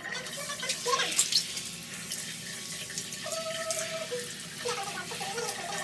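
Water running steadily from a tap, with a few clicks about a second in and some short, steady tones.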